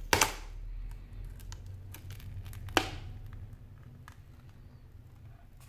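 Samsung Galaxy Note Pro 12.2 (SM-P905) tablet being pried apart by hand with a thin metal pry tool as its housing separates. There are two sharp snaps, one right at the start and one about two and a half seconds later, with lighter clicks in between.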